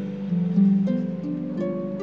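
Concert harp played slowly: single plucked notes, about five in two seconds, ringing out over held low notes.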